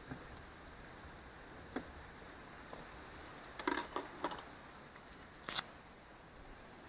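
A fork clinking against the aluminium wok and the cutlery beside it: a few light, sharp metal clicks, with a quick cluster of them about four seconds in, over a faint steady hiss.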